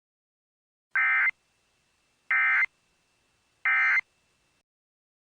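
Emergency Alert System End of Message data tones: three short buzzy bursts of digital warbling, evenly spaced about a second and a half apart, marking the end of the alert.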